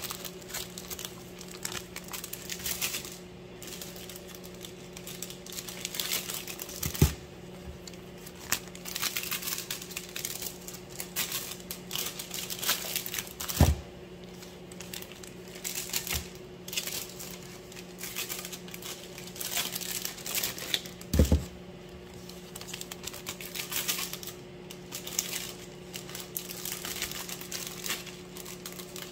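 Clear plastic zipper bags crinkling and rustling as butter bars are slid into them by gloved hands. There are three thumps on the counter, and a steady electrical hum runs underneath.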